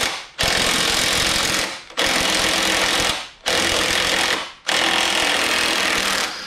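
Cordless impact wrench hammering on a bolt of a truck's rusty number-plate bracket, in four long bursts of a second or more with short breaks between.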